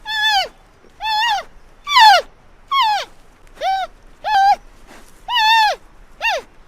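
An animal calling over and over: about eight high, pitched calls, each rising and then falling in pitch.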